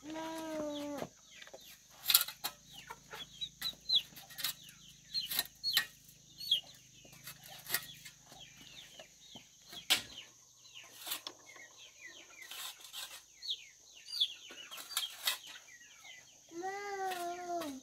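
A chick peeping over and over in short falling cheeps, mixed with sharp knocks of a hoe striking hard ground. A held call about a second long, falling at its end, opens the stretch and comes again near the end.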